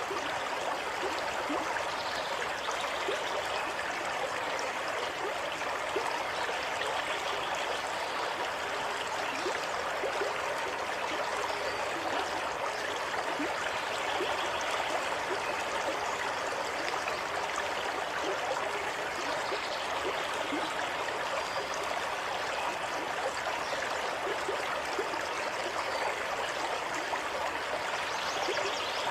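Water running steadily in a stream, a continuous splashing and trickling rush.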